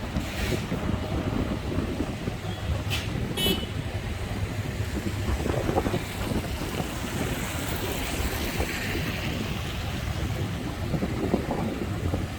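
Street traffic noise with wind rumbling on the microphone. A couple of short, sharp high-pitched sounds come about three seconds in.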